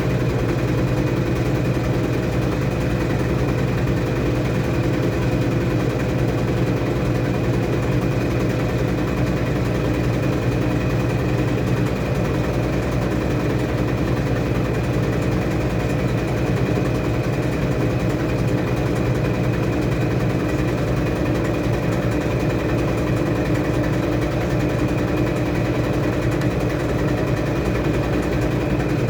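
Washing machine running with a steady, unchanging motor hum.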